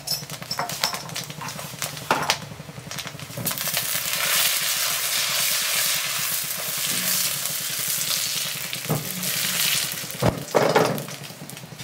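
Cumin and shahi jeera seeds sizzling in hot ghee and oil in a kadai, stirred with a spatula. A few sharp taps near the start, then the sizzle swells loud about three and a half seconds in and stays steady for several seconds. This is the seeds crackling in the tempering fat.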